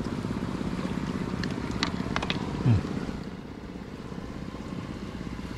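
A small engine running steadily with an even low pulse. A few sharp clicks come a little under two seconds in, and a brief, louder low falling sound follows shortly after.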